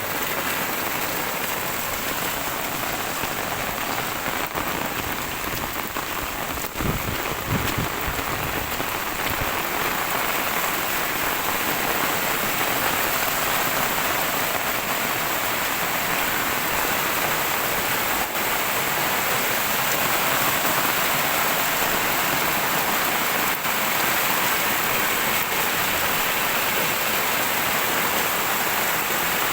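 Super heavy rain falling steadily, an even hiss of rain on surfaces, with a short low rumble about seven seconds in.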